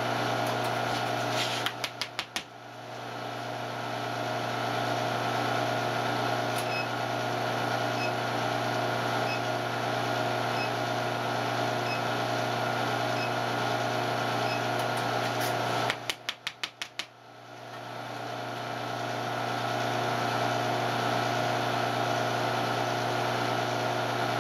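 Induction heater running while it brings small steel wire to a forge-welding heat in its coil: a steady electrical hum with several fixed tones. Twice, about two seconds in and again about sixteen seconds in, a quick run of clicks comes, the hum drops away and then swells back over a couple of seconds.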